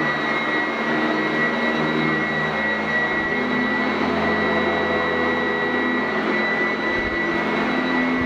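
Sanitaire SC899F commercial upright vacuum running on dirty carpet, with a steady high motor whine over the airflow noise and a lower hum that shifts as it is pushed back and forth.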